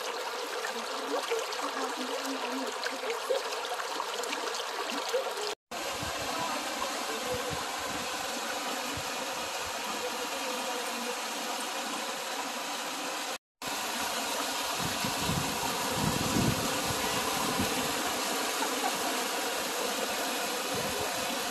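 Creek water rushing over rock and pouring down a small cascade, a steady rushing hiss that is deeper in the last part. The sound cuts out briefly twice.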